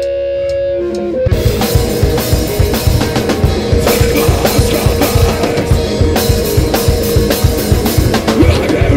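Live rock band with drum kit, bass guitar and electric guitar. A sustained guitar tone rings for about the first second, then the whole band comes in together with a fast, driving drum beat.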